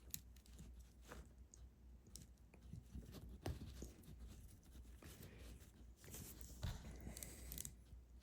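Faint, scattered clicks and rustles of LEGO plastic pieces being handled and pressed together, with a couple of sharper clicks partway through.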